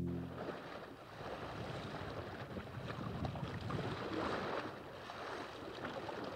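Water washing and splashing along the hull of a small sailing trimaran under way through light waves, with some wind noise. The sound swells and falls irregularly.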